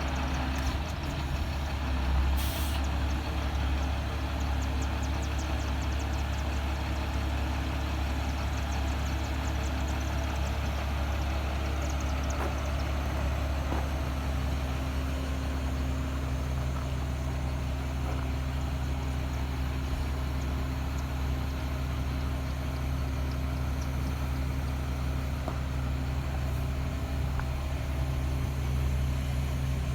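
Caterpillar 3126 inline-six diesel of a Freightliner FL80 truck running steadily, with a brief hiss about two and a half seconds in.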